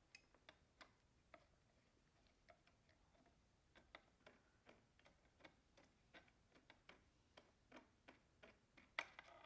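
Faint, irregular light metallic clicks, about one to two a second and a little louder near the end, from hand work on a motorcycle wheel's spokes while a replacement spoke and its nipple are fitted.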